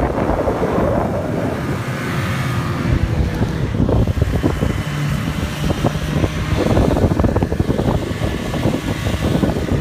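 Snowmobile engine running as it tows an inflatable banana boat over snow, with wind buffeting the microphone and frequent bumps and knocks as the boat rides along.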